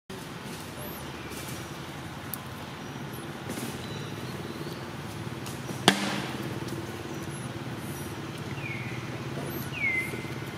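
Outdoor background with a steady low hum like a distant engine, a few short high chirps, and one sharp click about six seconds in.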